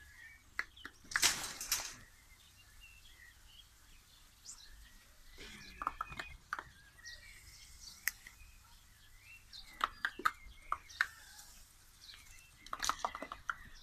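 Garden hose spray hitting a pack of border collies as they jump and snap at the water: irregular splashes and clicks, with short high yips among them, and a louder burst of spray about a second in.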